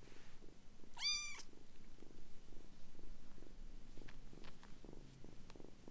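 Kitten purring steadily up close, with one short, high-pitched kitten mew about a second in.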